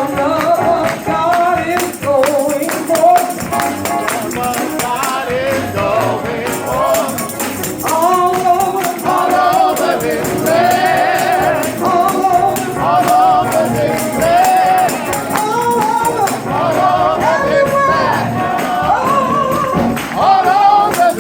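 Gospel song sung by a worship leader and congregation, with a tambourine shaking along.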